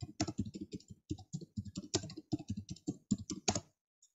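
Typing on a computer keyboard: a rapid run of keystrokes that stops about three and a half seconds in.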